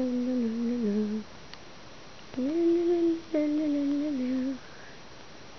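A woman humming a slow tune in long held notes that step down in pitch, in two phrases: one ending about a second in, the next starting about two and a half seconds in and lasting about two seconds.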